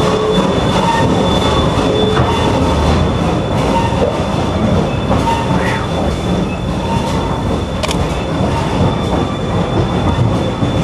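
Steam-hauled train running, heard from the caboose: a steady rumble and rattle of the cars on the rails, with brief faint wheel squeals.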